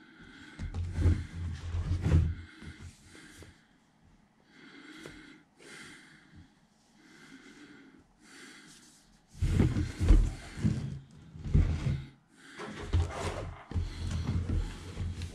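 A shrink-wrapped cardboard model kit box being handled, turned over and set down on a workbench, giving irregular rustling and bumping noises that are loudest in the second half. Breathing close to the microphone is heard in the quieter stretches.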